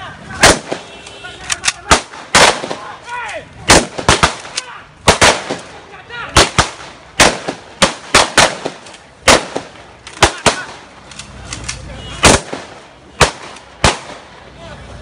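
A long series of sharp, loud bangs at irregular spacing, sometimes two or three in quick succession, about twenty-five in all.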